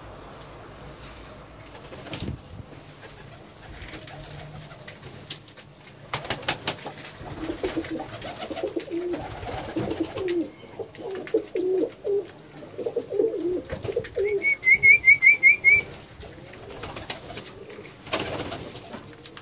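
Domestic pigeons cooing, a run of low rolling coos through the middle. Near the end of the cooing comes a quick run of about seven high chirps, the loudest sound.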